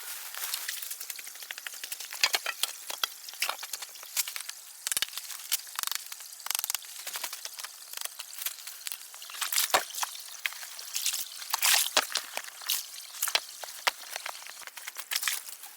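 Water pattering and trickling: a steady hiss with many irregular sharp ticks and drips.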